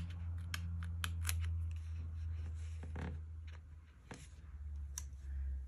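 Scissors cutting paper: a run of short crisp snips, quick at first and then a few spaced ones, over a steady low hum.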